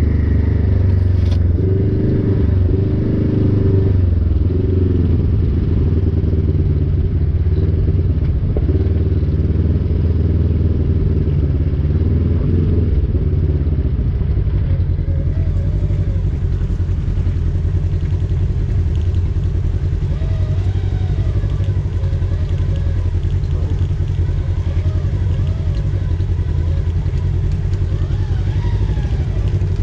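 Polaris side-by-side UTV engine running at low trail speed, heard from inside the cab, its pitch rising and falling as the throttle is worked.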